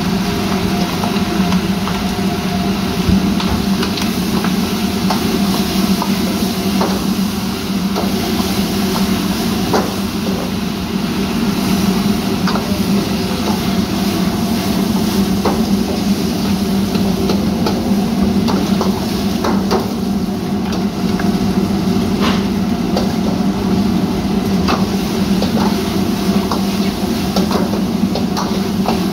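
Steady roar from a commercial gas wok range, with metal ladles and spatulas clanking and scraping in woks as food is stir-fried, and frying sizzle.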